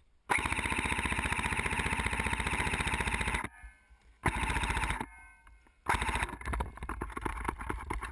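Airsoft rifle firing on full auto: a long, fast burst of about three seconds, then a short burst about a second later. Irregular clicks and knocks follow near the end.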